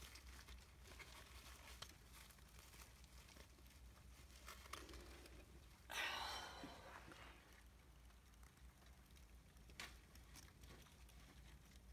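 Near silence with a steady low hum, faint scattered rustling and ticks, and one brief louder rustle about halfway through, fading over about a second.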